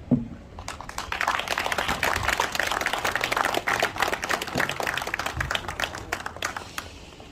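A single thump, then an audience applauding, a dense patter of many hands clapping that swells about a second in and dies away near the end.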